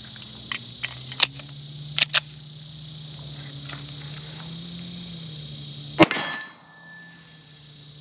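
Metallic clicks and clacks of a 1911 pistol being handled while clearing a failure to fire: several quick sharp clicks in the first couple of seconds, then one loud sharp crack-like clang about six seconds in, followed by a short ring.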